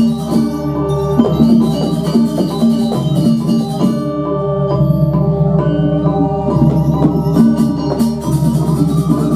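Balinese gamelan music: metal mallet instruments ringing a fast, repeating figure of struck notes, with drums underneath.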